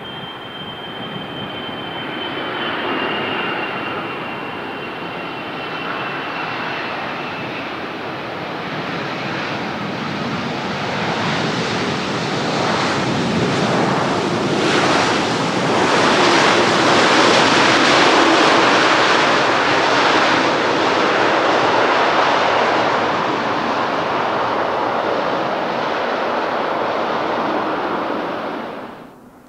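Boeing 777 freighter's twin GE90 turbofan engines as the jet lands. A thin, falling whine sounds in the first few seconds, then the engine noise swells to a loud, steady roar past the middle and cuts off suddenly near the end.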